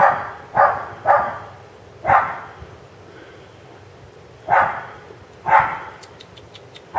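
A puppy barking: six short, sharp barks in uneven succession, three close together at the start, one a second later, then two more after a pause.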